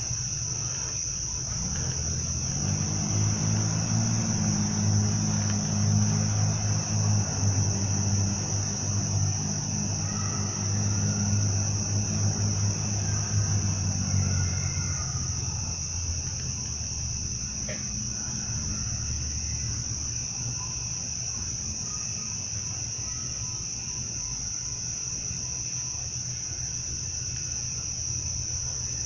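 Steady high-pitched chorus of night insects in woodland. A low droning hum swells in over the first couple of seconds and fades out about halfway through.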